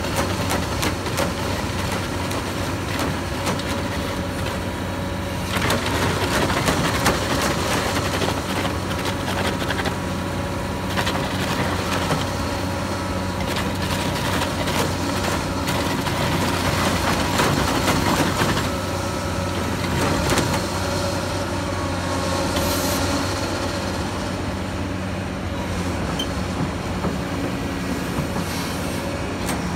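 Simex TF 3100 twin header's two spiked cutter drums grinding into a rock face, a dense crackle of chipping rock over the steady drone of the excavator and its hydraulic drive. The crackle is heaviest through the middle.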